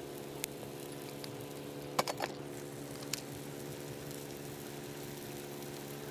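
A steady mechanical hum, like a motor running, with a few light clicks over it, the loudest a quick cluster about two seconds in.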